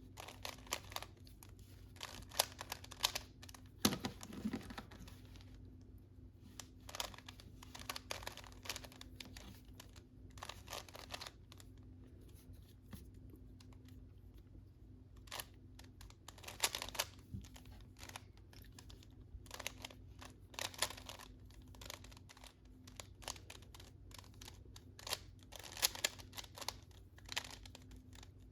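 A plastic Rubik's cube being turned by hand, its layers clicking and rattling in irregular flurries of quick turns with short pauses between, over a faint steady hum.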